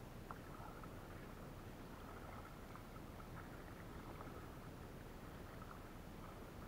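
Faint water sounds around a kayak: a low steady hiss with a few scattered small drips and clicks.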